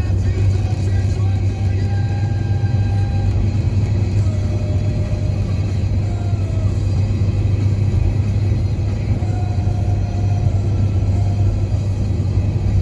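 Steady low drone of a car's engine and road noise heard from inside the cabin while cruising along an open road, with the car radio faintly audible underneath.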